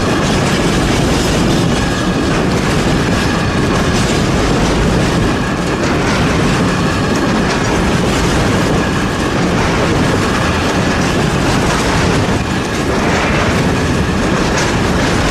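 Intermodal container train wagons rolling past steadily, with storm wind on the microphone.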